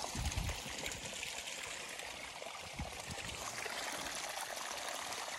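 Small trickle of water running and splashing steadily over a low step into a shallow pool, with a couple of soft low thumps.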